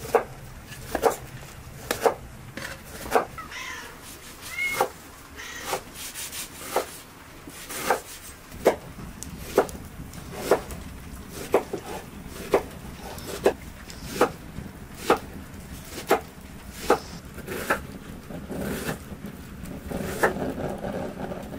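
A large knife chopping lamb meat on a wooden cutting board, one sharp chop about every second. A cat mews briefly a few seconds in.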